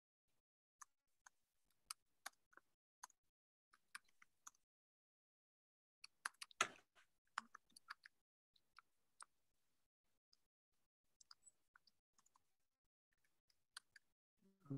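Faint, scattered clicks of a computer keyboard and mouse, irregular and sparse, with a small cluster about halfway through.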